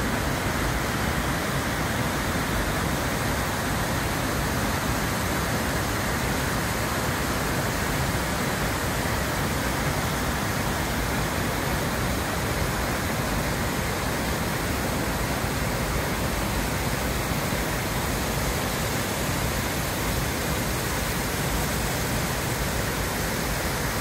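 The Rhine Falls' large waterfall: a steady rushing of falling water, unbroken and even in level.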